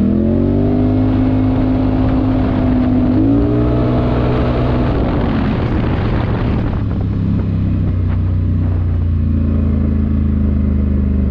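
Polaris Sportsman XP 1000 S ATV's parallel-twin engine running under way. The revs rise in the first second and climb again about three seconds in, then drop off around five seconds in and settle to a lower, steady run.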